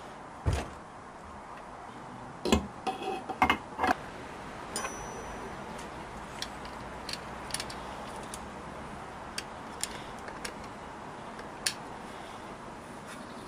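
BSA Bantam engine's alloy crankcase halves being fitted together over the crankshaft: a thump, then a quick cluster of metal knocks and clinks. After that come scattered light clicks of tools and case screws as the cases are screwed together with a screwdriver.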